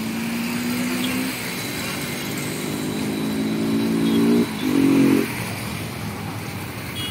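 Road traffic passing: motor vehicle engines run steadily, their pitch rising slightly, over a constant traffic hiss. Near the middle the engine note cuts off abruptly and comes back briefly louder.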